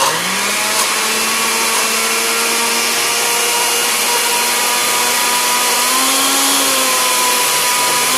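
Electric blender switching on and spinning up, then running steadily at high speed on a thick cilantro and yogurt sauce. The mix is not blending until water is added.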